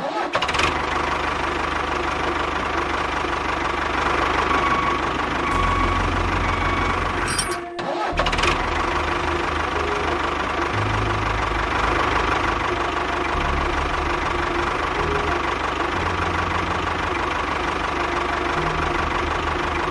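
A motor running steadily with a low, uneven throb. It cuts out briefly a little before 8 s and then resumes.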